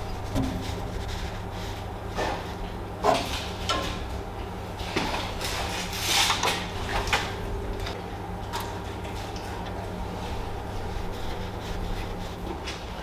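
Scattered clicks and knocks of the metal blade-guide fittings on a Felder FB 510 bandsaw as the locking knobs are loosened, turned and tightened, over a steady low hum.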